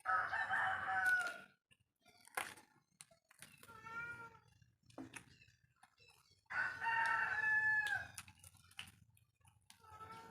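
A rooster crowing twice, each crow about a second and a half long, with fainter crows in between. A sharp click comes about two seconds in.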